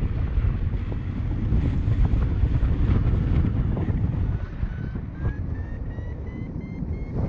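Airflow rushing over the action camera's microphone during a paraglider flight. From about four and a half seconds in, a paragliding variometer beeps faintly in a quick dashed series that rises in pitch and then holds, which signals that the glider is climbing.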